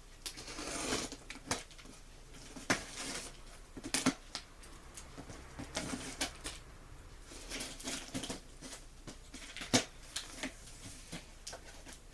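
A cardboard box being handled and opened: scattered sharp knocks and taps, with short bursts of rustling, the loudest knock near the end.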